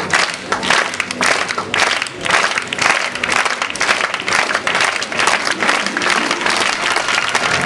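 Audience applauding, a dense run of many hands clapping, with music playing faintly underneath.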